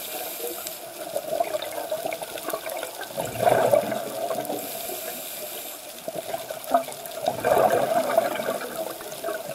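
A scuba diver breathing underwater through a regulator, two breath cycles. Each is a short hiss on the inhale, then a louder bubbling rush of exhaled bubbles, the bubble bursts coming about 3 and 7 seconds in. Faint scattered crackling underneath.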